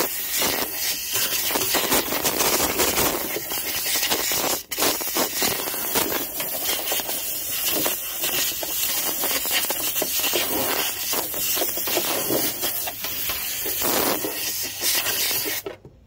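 Compressed-air blow gun hissing steadily as it blasts dried grass clippings off a lawn tractor's fuel tank and fuel line. There is a brief break about four and a half seconds in, and it cuts off abruptly just before the end.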